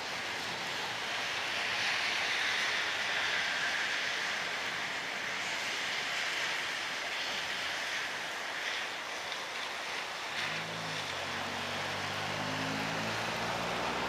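Steady hiss of heavy rain in a thunderstorm. About ten seconds in, a motor vehicle's engine comes in underneath, low and rising in pitch.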